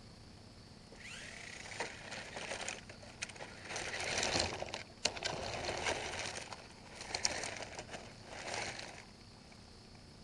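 Small battery-powered RC car driving, its wheels giving an irregular rattling and scraping noise that swells and fades several times, with a few sharp clicks, starting about a second in and dying away near the end.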